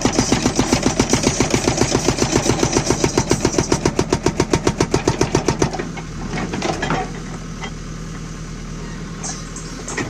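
Hydraulic breaker on a JCB 3DX backhoe loader hammering rapidly, about ten blows a second, then stopping about six seconds in. After that the backhoe's diesel engine keeps running, with a few metallic clanks.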